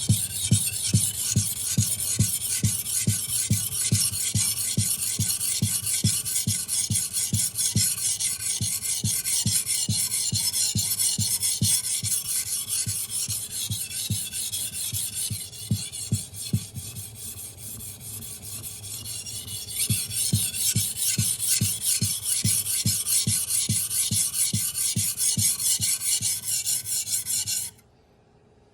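Damascus steel knife blade scraped back and forth over a coarse 400-grit whetstone in quick, rhythmic sharpening strokes. The strokes soften for a few seconds past the middle, pick up again, then stop abruptly near the end.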